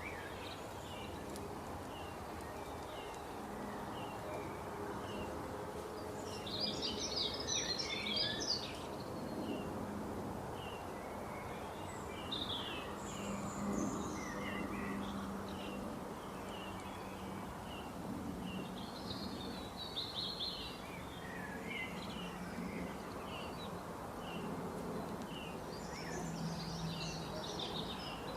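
Small birds chirping and twittering over a steady background hiss and a low hum, with thicker bursts of twittering about a quarter of the way in, around two-thirds through, and near the end.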